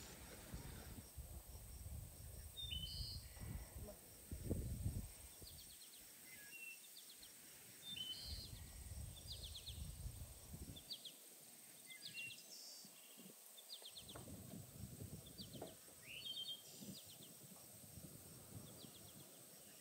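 Small birds chirping and trilling, short high calls repeating every second or so, over faint low rumbling with a few soft thumps, loudest about four to five seconds in.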